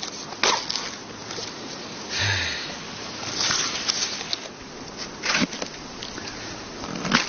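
Digging up bamboo shoots by hand: a few sharp knocks with short rustling scrapes in between.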